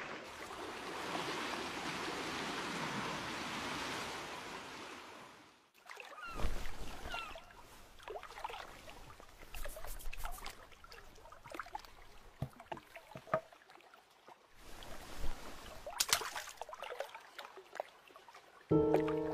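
A steady wash of water for about six seconds that stops abruptly, then quiet scattered knocks, drips and small splashes. Music begins just before the end.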